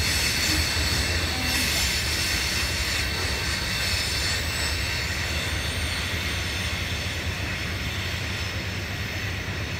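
Freight train cars rolling on the rails with a steady high-pitched wheel squeal, slowly getting quieter as the train moves off.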